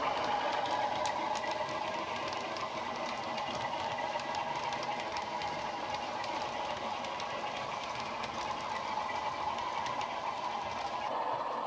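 Model Class 47 diesel locomotive's ESU LokSound decoder playing the Sulzer diesel engine running under power through half an EM1 speaker. The engine sound is steady, easing a little as the train draws away and coming up again near the end. Light clicks come from the model's wheels on the track.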